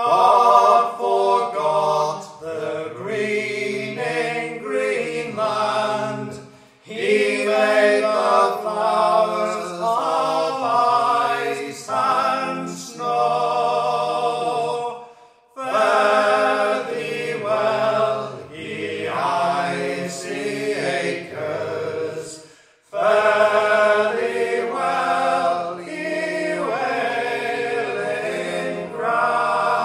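A male vocal trio singing a folk song in close harmony, in long phrases with brief breaks between them, about every seven or eight seconds.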